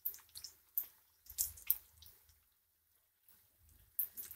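Batter-coated stuffed green chillies deep-frying in hot oil, the batter browned on one side: irregular sizzling crackles and pops that die down to almost nothing about halfway through and pick up again near the end.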